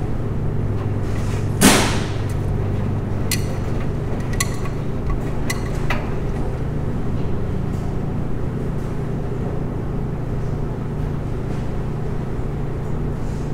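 Steady low mechanical hum, with one sharp knock just under two seconds in and a handful of lighter clicks a few seconds later.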